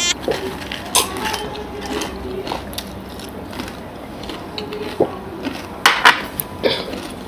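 A few short clinks of tableware at the eating table, one about a second in and a quick cluster near the end, over low room noise.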